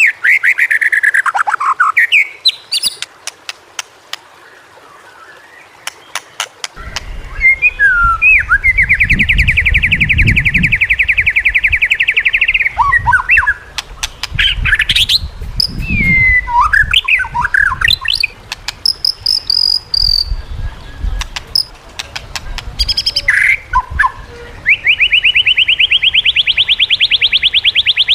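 White-rumped shama (murai batu) singing: loud varied whistled phrases and sharp clicks, with a long rapid pulsed trill in the middle and another starting near the end. A low rumble runs underneath from about a quarter of the way in.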